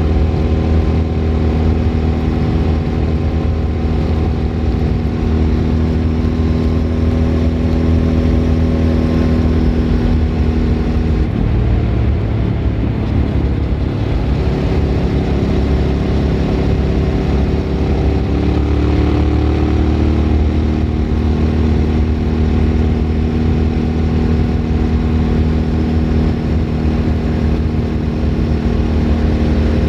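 Suzuki V-Strom 1000 V-twin running through a Remus aftermarket exhaust under way, heard onboard; its engine note changes about a third of the way in and again a little past halfway, as with a gear change or change of throttle.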